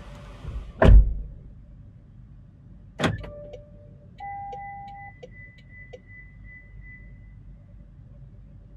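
Car doors slamming shut twice, heard from inside the car, the first the louder. About four seconds in, an electronic beep sounds, followed by a run of evenly spaced high pips that fade out.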